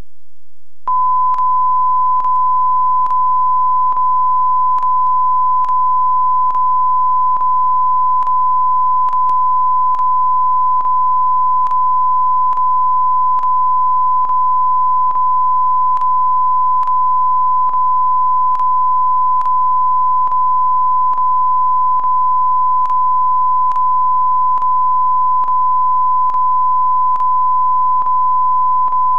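Steady test tone: a single high beep held at one pitch without change, starting about a second in. It comes with a faint click about once a second, and it is the kind of reference tone that sits over a plain grey test field at the end of a recording.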